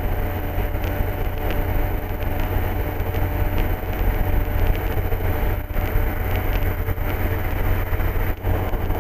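Steady drone of an MD3 Rider ultralight aircraft's engine and propeller in flight, heard from inside the cockpit.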